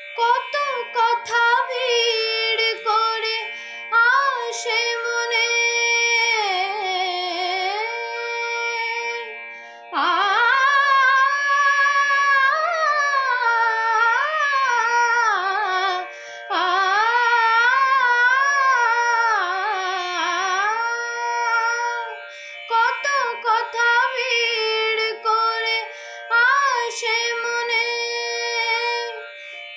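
A woman singing a Bengali adhunik (modern) song solo, in long phrases with gliding, ornamented pitch, over a steady drone accompaniment.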